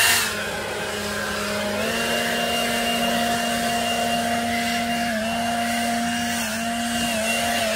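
Wild Badger Power 40V cordless electric leaf blower running: a steady motor whine over a rush of air. It drops to a lower speed just after the start, comes up slightly about two seconds in, and dips briefly a few times.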